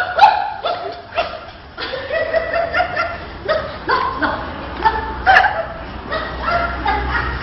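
People laughing in repeated short bursts, with a few spoken words mixed in.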